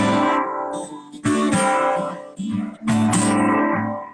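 Acoustic guitar strumming slow full chords, each left to ring and fade, closing a song after its last sung line.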